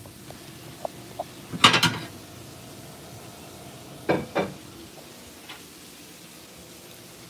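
Steaks frying in a pan with a steady faint sizzle, and a few clinks and clatters of a utensil and cookware against the pan. The loudest clatter comes about two seconds in and another just after four.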